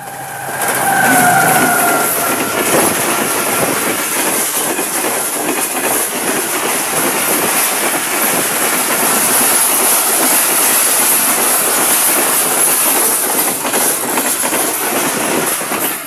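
A GEU40 diesel-electric locomotive sounds a horn note, falling slightly in pitch, in the first couple of seconds. It then passes at high speed hauling a long rake of passenger coaches: a loud, steady rush of wheels on rail with rapid clickety-clack, which drops away sharply at the end as the last coach goes by.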